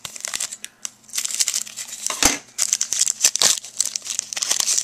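Scissors cutting open a foil trading-card pack, with a sharp snip a little past two seconds in, then the foil wrapper crinkling as it is pulled apart by hand.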